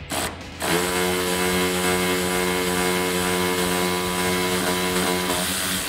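Cordless electric ratchet driving a socket on a long extension, spinning a bumper fastener out: a brief blip, then a steady motor whine of about four and a half seconds that stops shortly before the end.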